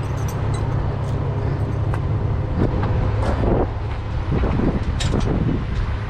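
Truck diesel engine idling steadily with a low hum. Around the middle come a few metal clanks and rattles from the axle chains being hooked up.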